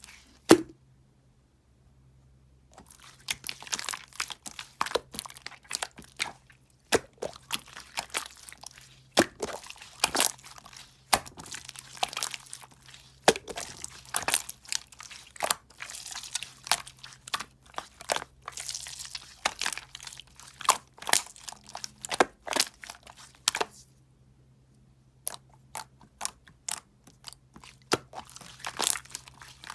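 Irregular crunching and crackling, many sharp clicks in quick succession, with two short pauses, one near the start and one about 24 seconds in.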